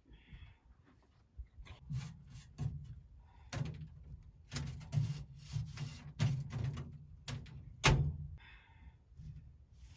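Metal clanks and scrapes at a sheet-metal wood-burning stove as ashes are raked out of it into a dustpan, with a louder sharp knock near the end.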